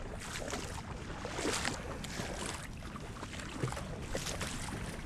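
Legs wading through a shallow stream, the water sloshing and swishing with each stride in repeated surges.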